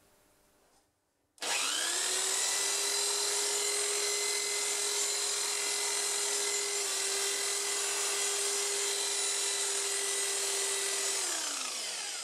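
Handheld corded electric drill switched on about a second and a half in, quickly rising to a steady high-speed whine with a rushing hiss from the bladed attachment spinning in its chuck. Near the end it is released and winds down, the pitch falling away.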